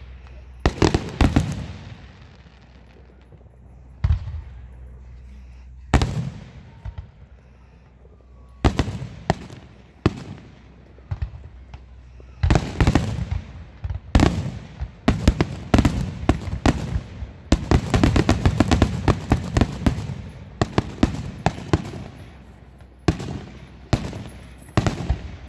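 Aerial fireworks shells bursting. In the first half there are scattered single booms a second or two apart, then from about halfway comes a rapid run of many bangs and crackles.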